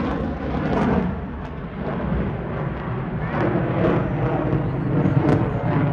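A single-engine aerobatic propeller plane's engine drones overhead as it tumbles through flat spins, uneven and rising and falling, with a brief dip about a second and a half in.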